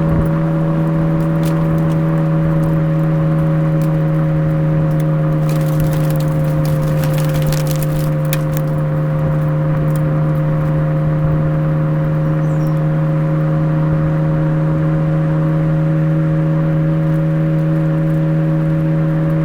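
Suzuki Swift Sport ZC33S's 1.4-litre turbocharged four-cylinder running through a Fujitsubo aftermarket exhaust, droning at a steady, unchanging pitch on a descent. A brief cluster of sharp crackles comes about six to eight seconds in.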